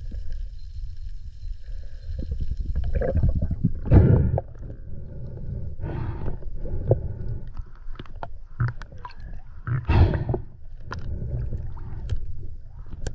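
Underwater noise heard through a submerged camera: a continuous low rumble of moving water, with louder gurgling surges about four, six and ten seconds in and scattered small clicks.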